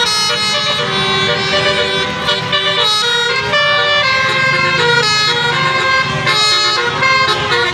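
Telolet horns, the multi-tone musical horn sets fitted to Indonesian buses and trucks, playing a fast melody. Several horn tones sound together and jump to new notes every fraction of a second.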